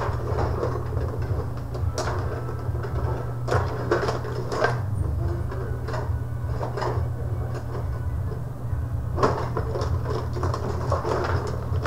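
Rod hockey table in play: the control rods slide and rattle and the plastic players and puck clack in irregular knocks, with a steady low hum underneath.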